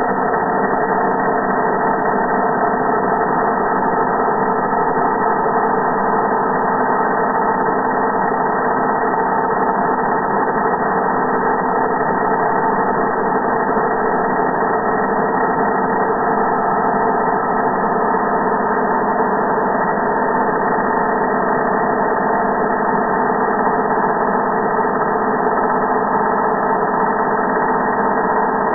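Electric angle grinder running steadily, its sound slowed down with the slow-motion footage into a low, even drone of several steady tones.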